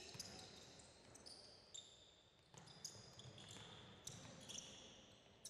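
Faint basketball dribbling on a hardwood gym floor, with several short sneaker squeaks as players cut and stop.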